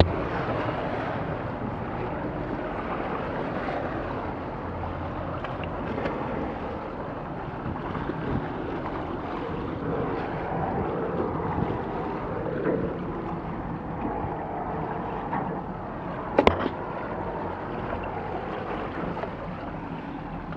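Wind buffeting the microphone over lake water lapping and sloshing around a capsized catamaran's hull, with one sharp knock about three-quarters of the way through.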